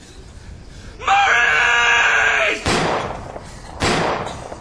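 A high-pitched held vocal cry starting about a second in and lasting about a second and a half, followed by two sharp bangs about a second apart.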